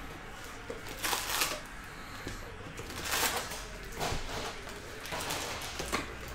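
Foil-wrapped Bowman baseball card packs crinkling and rustling against each other and the cardboard box as they are pulled out of the hobby box, in about four short bursts.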